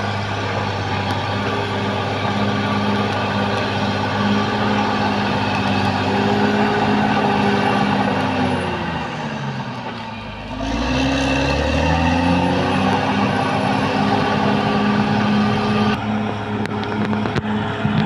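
Caterpillar D6R XL bulldozer's diesel engine running hard. About halfway through, its pitch drops steeply and then climbs back up over a second or two, with a faint high whine following the same fall and rise.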